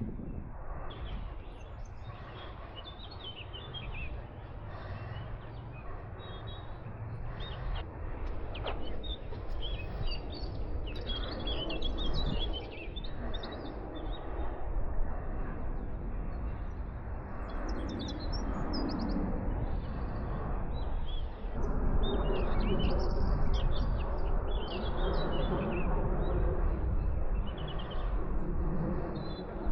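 Small songbirds chirping and singing, many short calls and song phrases over a steady low rumble.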